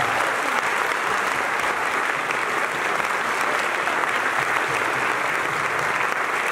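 Sustained applause from an audience and the people on stage, steady dense clapping without a break.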